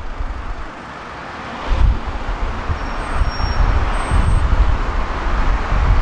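Street traffic passing, with low gusts of wind buffeting an unshielded microphone. The traffic noise drops briefly, then swells again about two seconds in.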